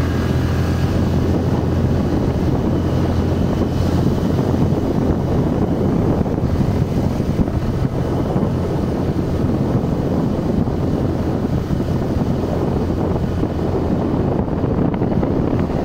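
Motorcycle engine running at a steady riding speed, with wind buffeting the microphone throughout.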